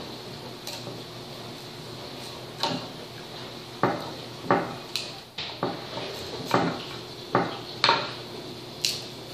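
Kitchen knife chopping rhubarb stalks against a wooden butcher-block cutting board: about ten sharp, uneven knocks, a half-second to a second apart, from a young child's unsteady chopping.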